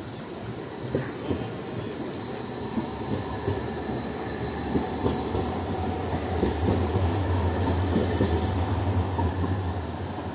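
An Edinburgh Trams CAF Urbos 3 tram passing close by on street track: a low rumble that builds, is loudest about eight seconds in, then starts to fade, over a steady street hum.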